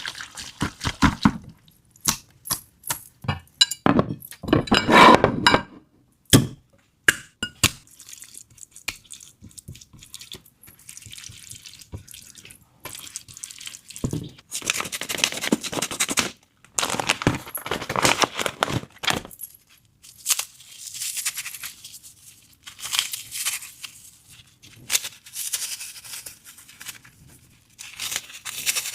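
Close-up food-preparation sounds: a quick run of clicks and clinks of dishes and glassware, then several stretches of a hissy pouring or rustling sound, each lasting a second or two.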